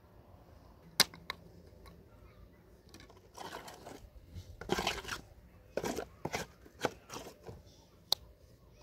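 A trowel scraping and scooping wet mud mortar in a metal basin and working it onto hollow clay bricks, in a run of rough scrapes. A sharp knock about a second in is the loudest sound, with a lighter click just after and another near the end.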